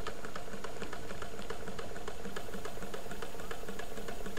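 Low temperature differential Stirling engine running on the heat of a hot cup of tea, its crank and linkage clicking in a rapid, even ticking, with a faint steady hum underneath.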